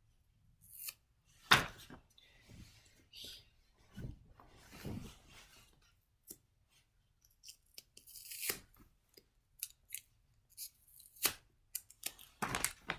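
Close handling of a new pajama set and its packaging: irregular rustling and crinkling in short spurts, broken by several sharp clicks. The loudest click comes about a second and a half in, with more near the end.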